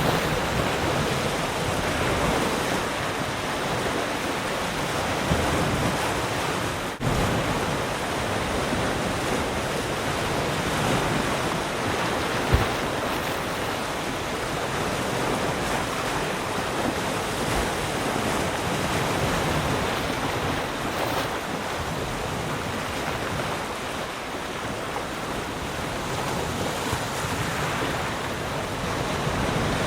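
Ocean surf washing steadily, an even rushing wash of breaking waves, with a momentary drop-out about seven seconds in.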